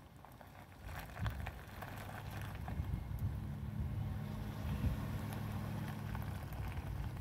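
Jeep Grand Cherokee SUV engine running at low speed as the vehicle creeps forward, a low steady hum that grows louder about a second in as it comes closer.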